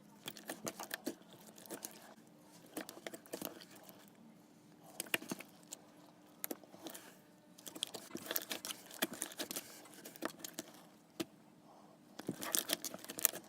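Clear slime being mixed, giving bursts of wet clicks and pops that come and go in several separate spells, the busiest near the end.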